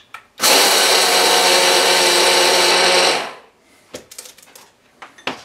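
Braun hand blender's chopper attachment grinding coarse brown cane sugar: the motor starts about half a second in, runs loud and steady for about three seconds with the sugar rattling against the plastic bowl, then winds down. A few light clicks follow near the end.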